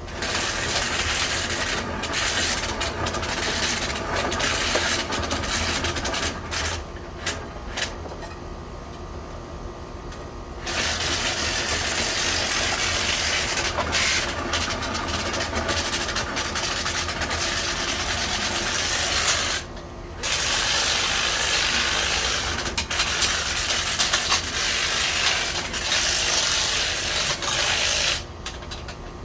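Drill-spun rotary brush working inside a dryer vent duct, a scraping, rushing hiss that starts and stops sharply in long runs, with a few short bursts near the middle, over a steady low hum.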